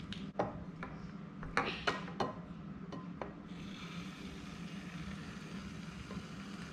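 Hands squeezing and pulling sticky shaving-cream slime in a glass bowl: a few short wet clicks and smacks, most of them in the first two seconds, then a soft rubbing hiss.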